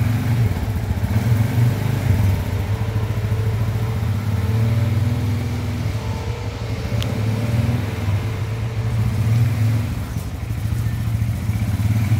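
Polaris Sportsman 570 ATV's single-cylinder four-stroke engine running as the quad is ridden slowly around, the engine note rising and falling a little with the throttle.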